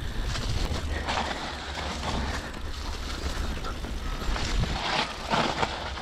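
Mountain bike rolling along a dirt trail: steady tyre and rattle noise with wind rumbling on the microphone, swelling louder about a second in and again near the end.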